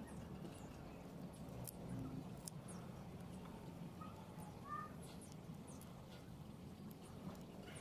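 Faint outdoor background: a low steady hum with scattered small ticks and a couple of short high chirps a little past halfway.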